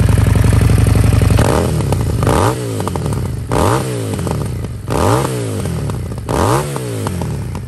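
Harley-Davidson Street Rod 750's V-twin through a Remus Custom slip-on exhaust fitted with its short baffle. It idles steadily, then the throttle is blipped four times, each rev rising and falling back.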